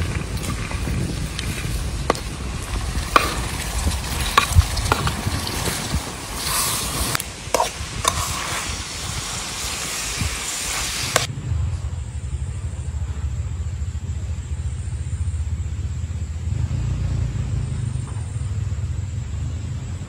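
Chopped green beans sizzling in a frying pan over a wood fire as they are poured in and stirred, with a metal spoon clinking and scraping against the pan. About eleven seconds in the sound cuts off suddenly, leaving a low steady rumble.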